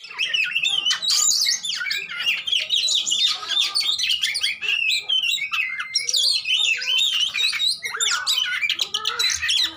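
Oriental magpie-robin (kacer) singing its fighting song: a fast, nearly unbroken run of varied whistles, trills and chirps, each note sliding up or down in pitch.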